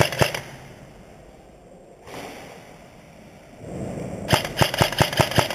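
Airsoft rifle firing rapid strings of sharp shots: a burst ending just after the start and a second burst of about eight shots near the end.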